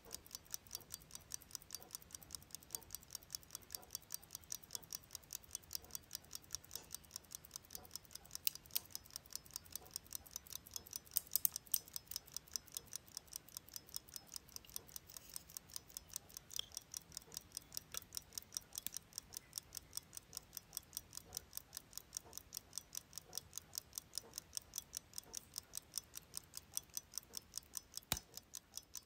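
Mechanical pocket watch with a lever escapement ticking: fast, even ticks of the running balance and lever, heard close up. There is one louder knock near the end.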